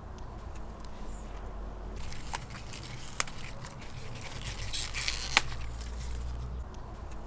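Green onion stalks being picked by hand: crisp snapping and crackling as the hollow stalks break, with rustling leaves. A few sharp snaps stand out, the loudest about three and five seconds in.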